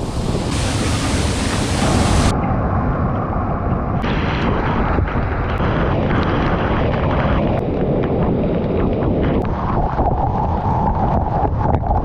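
Aling-Aling waterfall pouring into its plunge pool: a loud, steady rush of falling water, heard close up from under the falls as spray splashes onto the microphone. The sound changes abruptly about two and four seconds in.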